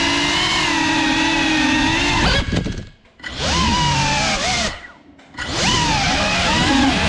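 GEPRC CineLog35 cinewhoop drone's motors and ducted propellers whining in a buzzy, multi-tone drone whose pitch wavers with throttle. The sound cuts almost to nothing twice, about two and a half and five seconds in, and then spins back up with rising and falling pitch, as the drone comes down under a table.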